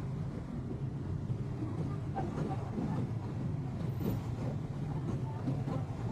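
Steady low engine rumble, with faint voices in the background.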